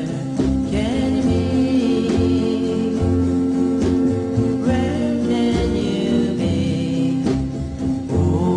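A song playing: a singing voice holding long, drawn-out notes over an instrumental backing, with a choir-like vocal sound.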